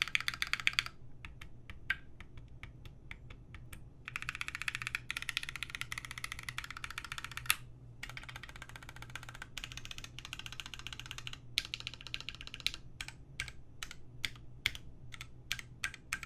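Custom mechanical keyboard with Gateron Black Ink v2 linear switches on a polycarbonate plate, with GMK keycaps, typed on: a quick run of keystrokes at the start, a few seconds of slower single key presses, two more fast typing runs, then scattered single presses near the end. A steady low fan hum sits underneath.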